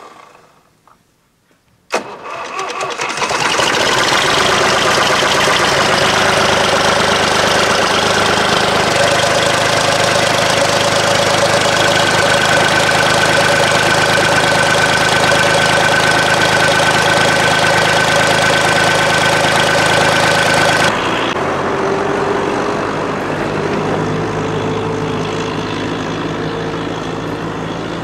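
UTB Universal 445 tractor's diesel engine cold-started with a flame held at the engine to warm the intake: it cranks and catches about two seconds in, then runs loud and steady. Near the end the sound switches abruptly to a tractor engine running more quietly as it drives.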